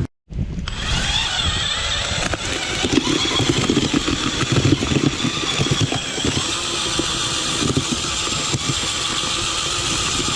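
A motor engine running steadily with a wavering whine, over low wind rumble.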